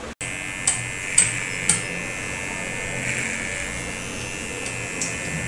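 Electric hair clipper running with a steady buzz during a haircut. Three sharp clicks come in quick succession in the first two seconds, and one more near the end.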